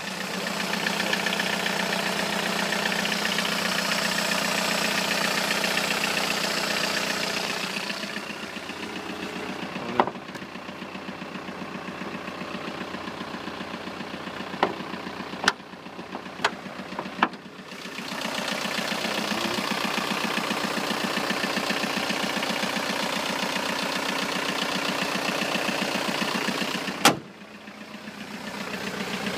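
Car engine idling steadily, its level rising and falling, with a few sharp knocks scattered through.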